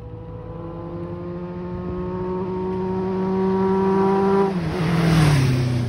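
Kawasaki GPZ inline-four motorcycle with a stainless aftermarket muffler riding past at steady speed: its engine note holds one pitch and grows louder as it approaches, then drops in pitch as it goes by about four and a half seconds in, with a brief rush of noise, and fades away.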